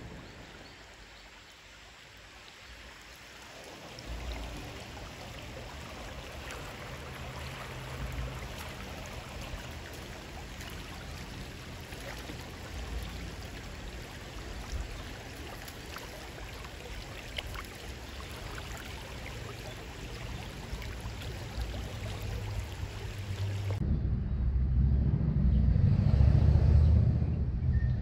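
Creek water running: a steady, even rushing hiss. About four seconds before the end it cuts to a louder low rumble.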